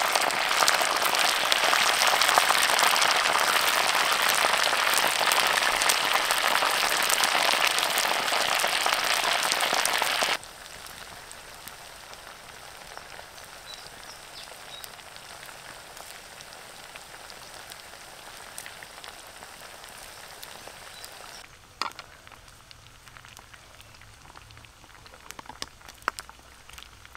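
Whole frogs deep-frying in hot oil in a clay pot, sizzling and crackling densely. About ten seconds in, the sizzle drops suddenly to a quieter, steady hiss. Near the end come a few sharp knocks of a pestle in a mortar.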